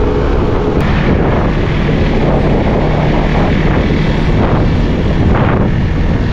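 Heavy wind buffeting the microphone while riding a small rented scooter, with the scooter's engine running underneath.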